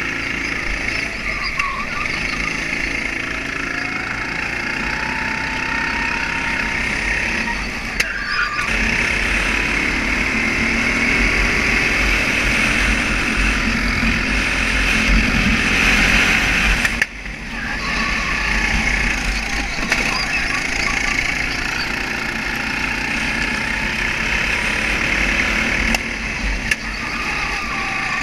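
Racing kart engine running hard on track, its pitch rising and falling with throttle, heard from the driver's helmet with heavy rushing noise. The engine note dips briefly about eight seconds in and drops sharply about seventeen seconds in before building again.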